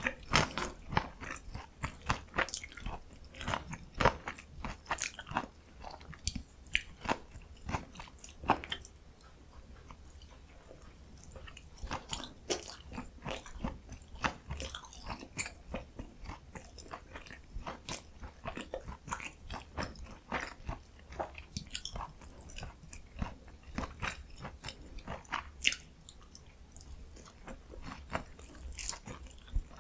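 Close-miked eating: a person biting and chewing mandu dumplings, with many sharp, wet crunchy clicks. The chewing eases off for a few seconds about a third of the way in, then picks up again, over a faint low hum.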